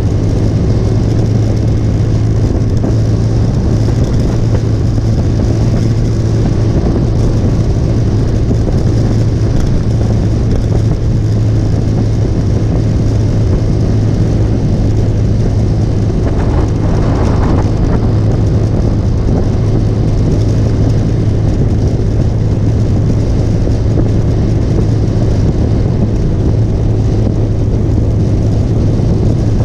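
Motorcycle engine running steadily at cruising speed on the highway, a constant low drone under a rush of wind and road noise, with a brief louder rush a little past halfway.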